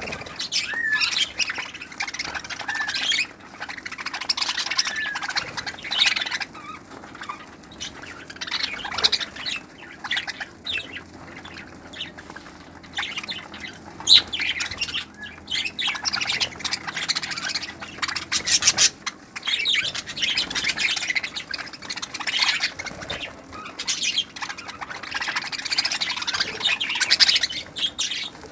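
A flock of budgerigars chattering, with squawks and chirps, swelling in waves and dropping back between them; now and then a brief flutter of wings as a bird flies in or out.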